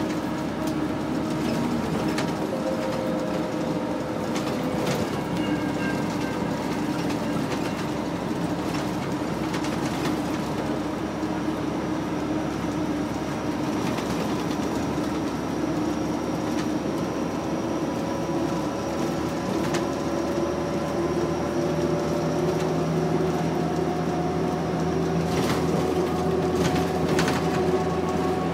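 Inside a 2001 New Flyer C40LF transit bus under way: its Cummins C Gas Plus natural-gas engine and Allison B400R automatic transmission running with a steady whine that climbs slowly in pitch through the second half as the bus gathers speed. Light rattles and clicks from the bus body come and go.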